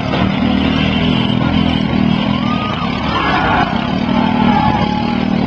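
Several riding lawn mower engines running together.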